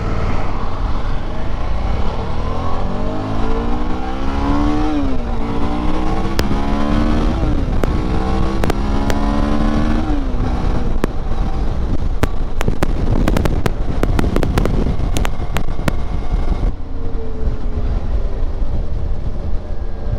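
Suzuki V-Strom's V-twin engine accelerating on the road, its pitch rising, dropping sharply at an upshift about five seconds in, rising again and dropping about ten seconds in, under steady wind rush on the microphone. Scattered sharp clicks come through in the middle.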